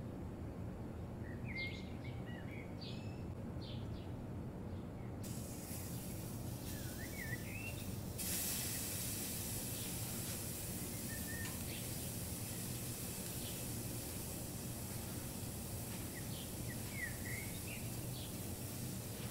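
Liver kabab skewers sizzling on a hot iron tawa: a steady hiss that sets in sharply about eight seconds in, over a low steady hum. A bird chirps a few times in the background.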